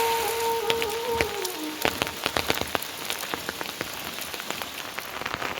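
Rain falling, with many separate drops striking sharply one after another over a steady hiss. In the first second and a half a held pitched tone wavers, drops in pitch and fades out.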